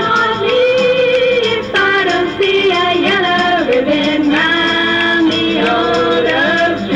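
A young woman singing a melody into a microphone, backed by live band music with a steady beat of light ticks.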